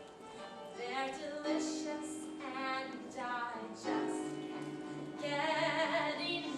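A female voice singing a musical-theatre song over instrumental accompaniment, with a low accompaniment note repeated about three times a second from about four seconds in.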